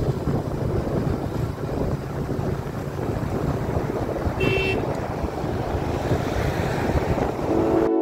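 Wind buffeting the microphone, with road and engine noise from a vehicle moving along at speed. A short horn beep sounds about halfway through. Just before the end the road noise cuts out and music comes in.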